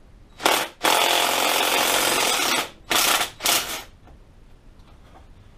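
Cordless impact wrench run in four bursts, a short one, a long one of nearly two seconds, then two short ones, spinning a 9/16 castellated nut off a motor mount bolt.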